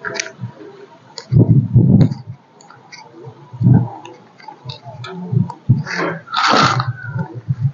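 Hands mixing chopped onion, green chillies and herbs in a steel bowl: scattered clicks and rustles, a few dull low thumps, and a louder rustling burst about six and a half seconds in.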